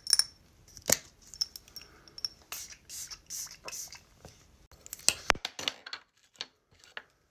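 Pump spray bottle of facial mist spritzed several times at the face: about four short hissing sprays in the middle, with sharp clicks and taps from handling the plastic bottle before and after.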